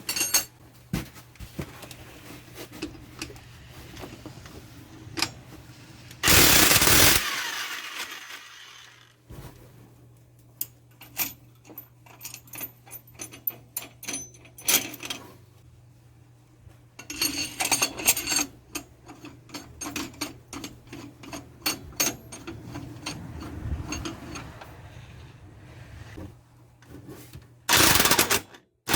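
Impact wrench firing in two short bursts of about a second each, one about six seconds in and one near the end, with clinks and clatter of metal tools and parts between, over a faint steady hum. It is the impact gun loosening the primary clutch's main nut and driving the clutch puller on a Polaris RZR 900 S.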